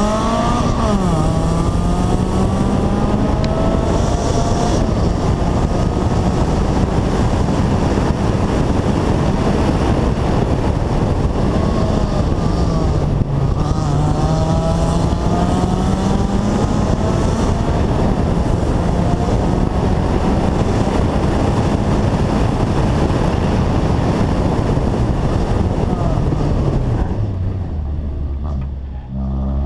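Honda CRX rally car's engine run hard at high revs, over heavy wind and road noise. The pitch dips and climbs back about a second in and again around twelve seconds. Near the end the revs fall away as the car slows for a tight chicane, then rise again.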